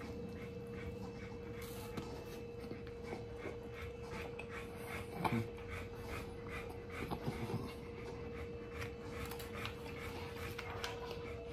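A man chewing a mouthful of cheesesteak, with breathing and many small, wet mouth clicks, over a steady faint tone.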